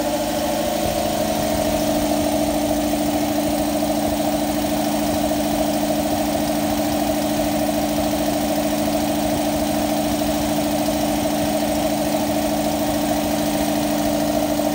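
Campbell Hausfeld 60-gallon vertical air compressor running steadily: its 230-volt single-phase electric motor and belt-driven piston pump give an even mechanical hum.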